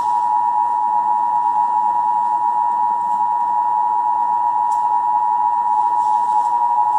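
Emergency Broadcast System attention signal: the two-tone alert of 853 Hz and 960 Hz sounded together, held as one steady, unbroken tone.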